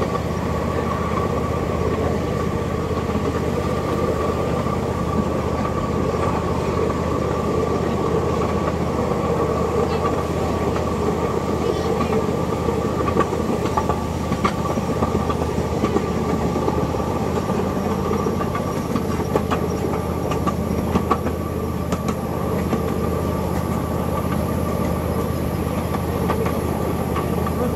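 Miniature passenger train running along its track: a steady rumble with a constant high hum. Scattered clicks and knocks of wheels over rail joints come through, mostly in the middle stretch.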